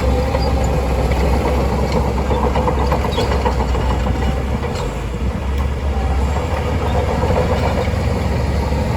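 Shantui DH17C2 crawler bulldozer at work: its diesel engine runs steadily with a deep rumble, and there is a light metallic clatter from the tracks. The engine briefly eases off about five seconds in.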